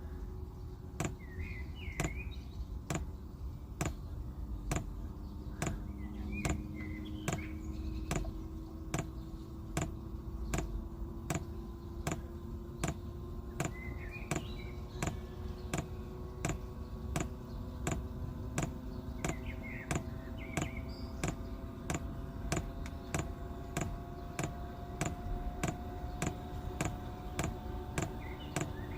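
Diesel heater's fuel dosing pump ticking in a steady rhythm, a little under two clicks a second, over the hum of the heater's blower fan slowly rising in pitch. This is the heater's start-up sequence, with fuel now being pumped to the burner.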